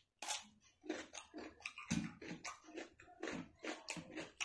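Close-up chewing of a mouthful of rice and egg curry: a string of irregular wet mouth clicks and smacks.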